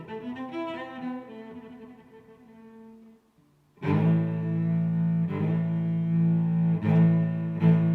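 Background music. A melodic piece fades out about three seconds in, and after a brief silence a louder piece with low sustained notes starts.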